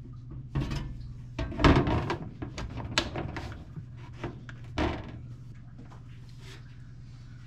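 Galvanized sheet-metal vent pipe pieces being handled and fitted together: irregular scraping and sharp clanks of metal on metal, mostly in the first five seconds, then a steady low hum.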